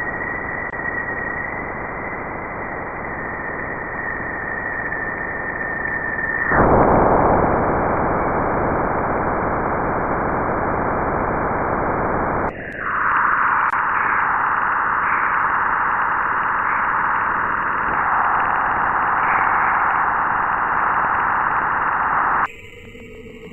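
Static-like hiss of a sonified celestial-body space recording, with a faint steady high tone in the first part. The hiss changes character abruptly twice, at about six and twelve seconds, and drops away about a second before the end.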